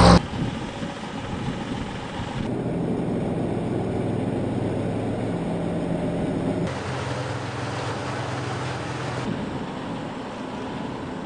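Engine of a light off-road vehicle running steadily through several shots cut together, with its sound changing abruptly at each cut. A loud rising pass-by cuts off sharply at the very start.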